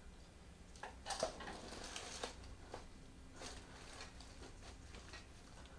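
Faint rustling and soft friction of hands rubbing over a patient's clothing and skin during trigger-point massage, with a few soft clicks.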